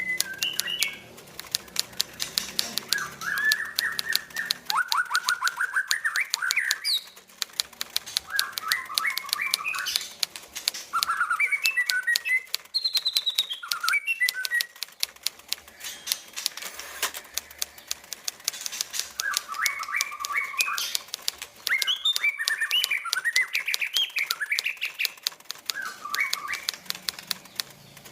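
White-rumped shama (murai) singing in repeated bursts of quick chattering phrases, with a dense, rapid clicking and fluttering throughout as the bird moves about its cage.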